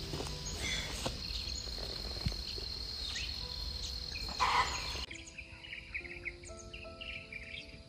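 Rural paddy-side ambience with a steady high insect trill and a few bird chirps. About five seconds in, it cuts abruptly to soft background music of held notes.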